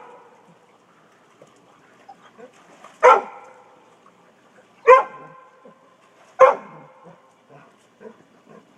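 A dog barking at a pool cleaner: three single, sharp barks, spaced about a second and a half to two seconds apart.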